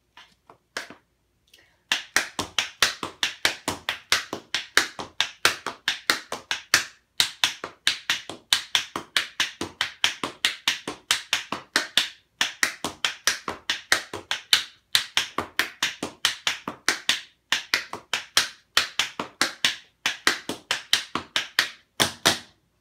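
Tap shoes doing a flap-heel drill on a tile floor: fast runs of sharp metal taps in repeated phrases, with short gaps between phrases. A few light taps come first, and the steady runs start about two seconds in.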